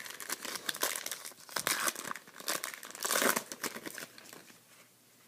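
Trading-card pack wrapper crinkling and being torn open, a dense crackle that is loudest about three seconds in and dies away soon after.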